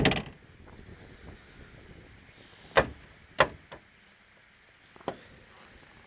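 Storage hatch lids on an aluminum bass boat being handled and clunking shut: a sharp knock right at the start, two more about half a second apart near the middle, and a lighter one about five seconds in.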